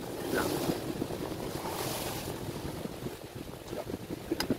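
Steady rushing noise of wind or moving air on the microphone, with a couple of sharp clicks near the end.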